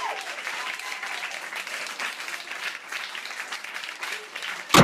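Crowd applauding steadily, with one sharp loud thump near the end.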